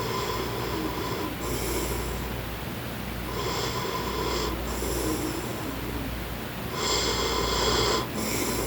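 A man snoring in a steady rhythm, about one snore every three and a half seconds, three in all, each a longer sound followed closely by a short second one.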